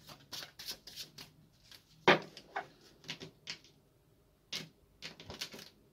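Tarot cards being shuffled and cut into piles: a string of short taps and slaps, the loudest about two seconds in, with a brief lull a little before the end.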